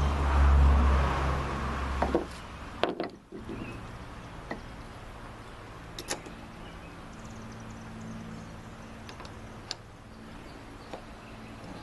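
A few sharp metal knocks spaced out over several seconds, the loudest about three and six seconds in, from a spring-loaded lug crimping tool being worked on a 2/0 welding-cable lug against a hard steel deck. A loud low hum is heard at first and stops about two seconds in, leaving a fainter steady hum.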